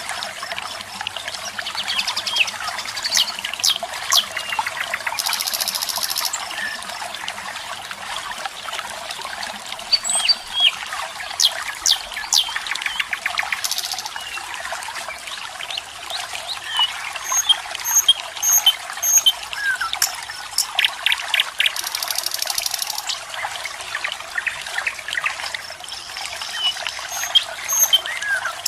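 Water trickling and splashing steadily, with birds chirping in short, scattered calls throughout. Two brief high, buzzy trills, about five seconds in and again near twenty-two seconds.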